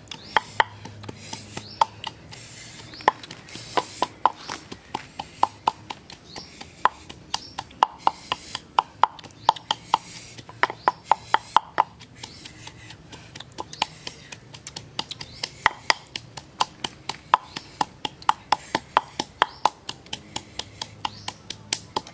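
Wooden pestle pounding in a wooden mortar: runs of sharp knocks, about three a second, with short pauses between runs.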